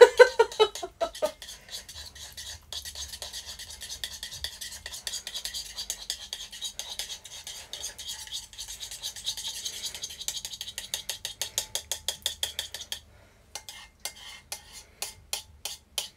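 A utensil beating quickly and rhythmically against a small bowl, mixing miso paste, mirin and vegetable oil into a smooth glaze. The fast, even strokes stop briefly near the end, then go on more slowly.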